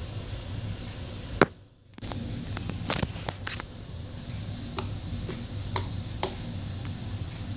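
Slime being poked: scattered short clicks and pops over a steady low hum, the sharpest click about a second and a half in, followed by a brief gap, then small clusters of pops.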